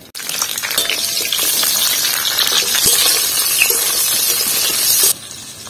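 Pieces of green bell pepper sizzling in hot oil in a kadai while a metal spatula stirs and scrapes them, a loud steady hiss with small scraping clicks. The sizzle drops off abruptly about five seconds in.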